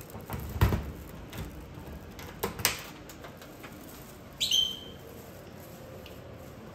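Key clicking and knocking in a locker's lock as it is worked and turned, then the locker door pulled open with a short, high squeak about four and a half seconds in.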